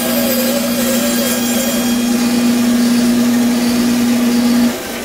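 Bandsaw running and cutting through a strip of wood, with a steady hum and a wavering higher tone. The hum cuts off suddenly a little before the end, and the sound drops to a quieter steady running.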